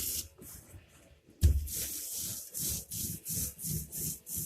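Paint roller worked back and forth over a wall in quick, even strokes, about three a second, each stroke a sticky hiss. A single thump about a second and a half in.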